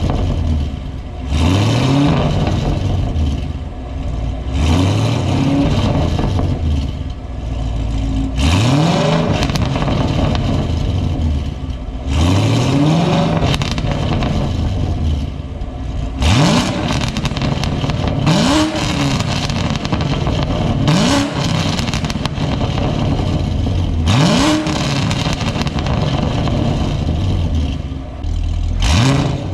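Chevrolet Camaro SS 1LE's LT1 V8, fitted with long-tube headers, revved about nine times. Each rev climbs in pitch for about a second, then drops back before the next.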